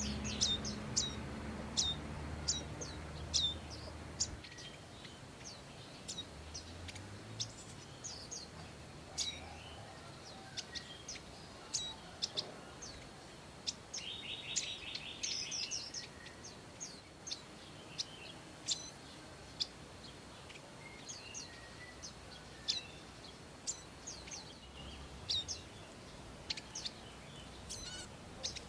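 Prinias calling: a steady series of sharp, high, down-slurred chirps, about one to two a second, with a short buzzy rattle about halfway through.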